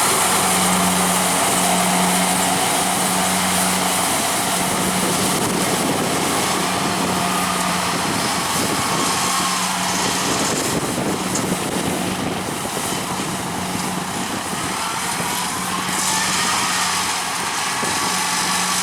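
Kubota DC-70 combine harvester running as it cuts rice: a steady mechanical drone with a constant low hum.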